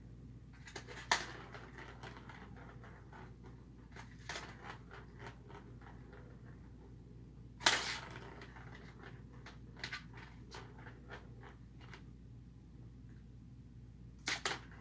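Scattered plastic clicks and rattles of balls knocking around inside a cat's ball-track toy as a cat bats at it, with the sharpest knock about halfway through, over a steady low hum.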